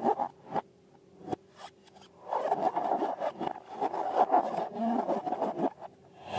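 Rubbing and scraping from hands working slime and rubber balloons: a few quick strokes at the start, then about three seconds of continuous rubbing, ending in a sharp click.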